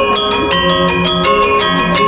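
Balinese gamelan playing: bronze metallophones struck with mallets in a fast, even run of notes, about eight strokes a second, each note ringing on under the next.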